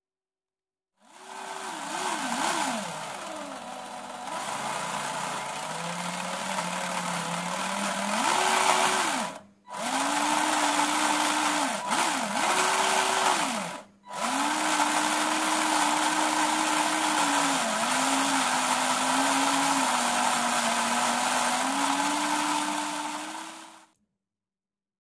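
Small electric motor and gearbox of a scale RC dump truck running, turning the drivetrain and the shaft to its hydraulic gear pump. The whine rises and falls as the speed changes, stopping briefly twice.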